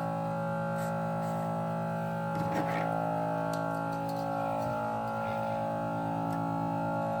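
Background music of held, sustained tones over an even low pulse.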